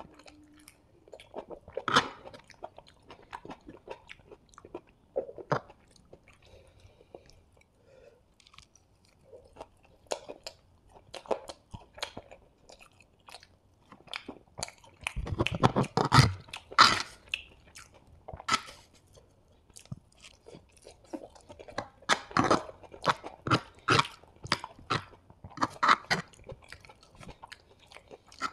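Close-miked chewing of chilli chicken and green capsicum pieces, with crisp crunches and wet mouth clicks coming in irregular bursts; the loudest, densest chewing is about halfway through.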